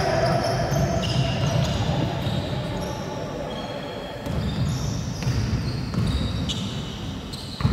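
Basketball game in a large hall: a ball dribbled on the wooden court, short high sneaker squeaks, and voices echoing around the gym.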